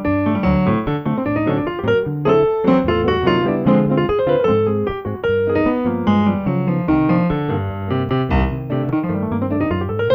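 Kawai MP4 stage piano and an archtop hollow-body electric guitar playing a bossa nova tune together, the piano carrying moving melodic lines over the guitar's chords.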